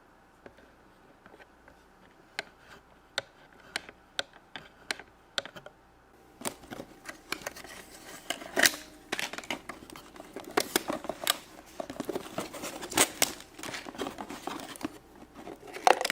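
Small plastic toy pieces clicking as they are handled and set down one at a time. From about six seconds in, plastic packaging crinkles and rustles continuously, with sharper crackles.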